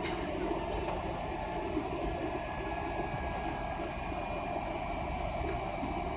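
Steady cabin noise of an airliner climbing after takeoff: jet engines and rushing air heard from inside the cabin, with a faint high whine.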